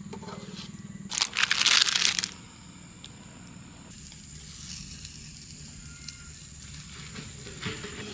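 Roti canai frying in oil in a cast-iron skillet, sizzling softly and steadily from about four seconds in. About a second in there is a louder rush of noise lasting about a second.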